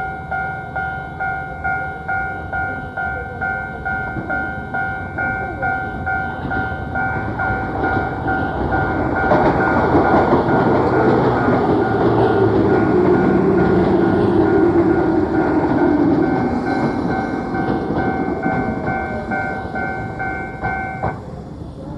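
Railway level-crossing alarm ringing its repeating two-tone clang about two and a half times a second, on an old cassette recording. A Keio Inokashira Line train passes through the crossing, loudest midway and then fading. The alarm cuts off about a second before the end, as the crossing clears.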